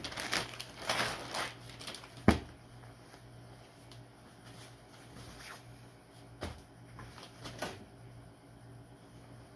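Clear plastic bag crinkling as folded cargo pants are pulled out of it, with one sharp knock a little over two seconds in, then softer scattered rustles of fabric and plastic.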